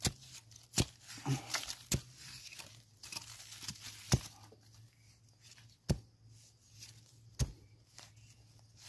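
Metal blade stabbing and scraping into dry, crumbly soil to dig out a wild mushroom: about six sharp knocks at uneven intervals, with soft scratching and crumbling of earth between them.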